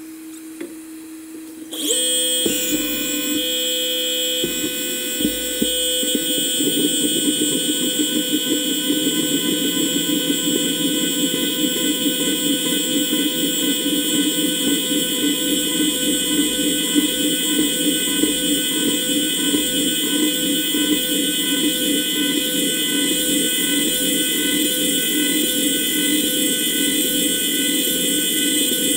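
CNC milling machine cutting titanium with an end mill: a steady high-pitched whine made of several tones over a fast rough chatter of the cut. It starts suddenly about two seconds in, after a faint low hum.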